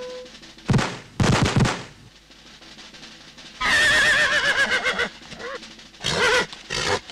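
Cartoon horse neighing: a long quavering whinny about halfway through and shorter calls near the end. About a second in, two loud crashes come first.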